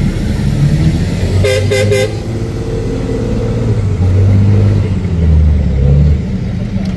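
Trial truck's diesel engine running under load, revving up and down as it climbs, with three quick horn toots about one and a half seconds in.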